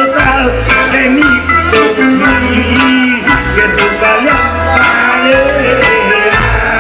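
Live band music played loud through a PA: a steady bass line and drum beat under electric guitar and a small plucked string instrument playing the melody.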